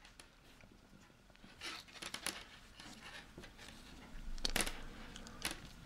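Faint clicking and rustling of circular knitting needles and yarn as stitches are worked, with a few sharper clicks, the loudest about three quarters of the way through.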